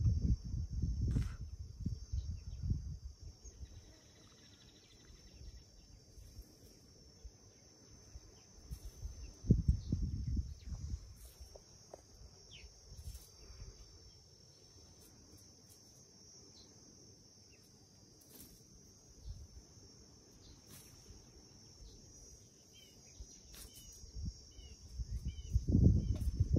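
Steady high-pitched insect chirring. Bursts of low rumble come at the start, about ten seconds in and near the end, and a few short high chirps are heard near the end.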